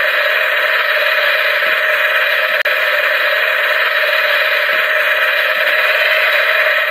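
Loud, steady static hiss, like an untuned radio, that cuts out for an instant about two and a half seconds in.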